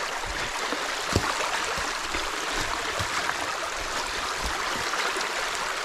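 Creek water rushing steadily through a channel breached in a beaver dam, with a few soft knocks, the clearest about a second in.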